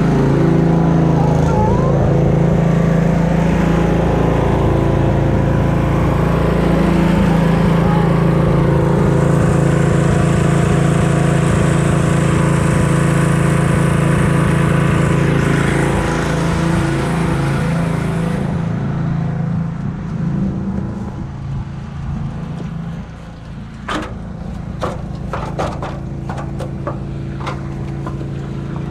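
Pressure washer engine running steadily with the high hiss of the spray from the wand; about two-thirds of the way through the spray cuts off while the engine keeps running. Near the end come a series of sharp clicks and knocks.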